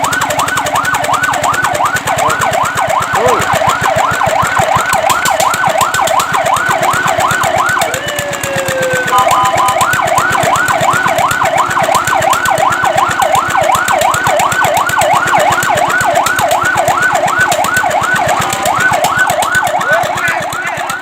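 Fire truck siren in a fast yelp, a rapid rising-and-falling whoop about four times a second. About eight seconds in it breaks briefly into a slow sweep and a short steady tone, then the fast yelp resumes.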